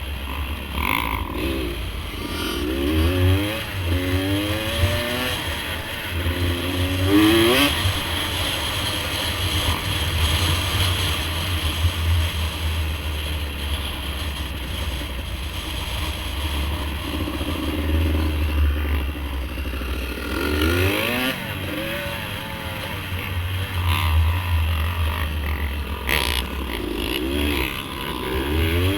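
Off-road vehicle engine revving up and down repeatedly while riding, with a steady low rumble underneath.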